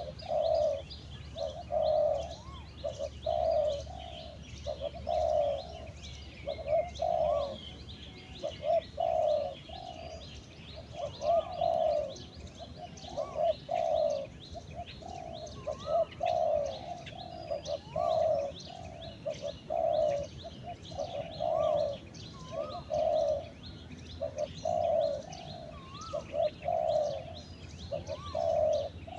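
Spotted doves cooing over and over, a short low coo phrase every second or two, as used in decoy luring. Small birds chirp faintly in the background.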